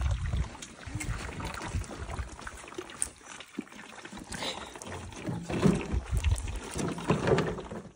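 Baby elephants sucking and gulping milk from large feeding bottles, over a low rumbling background. Faint voices come in during the last couple of seconds.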